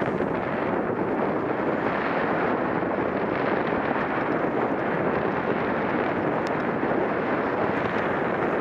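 Steady wind rush on the camera microphone from the airflow of a paraglider in flight, an even noise with no breaks.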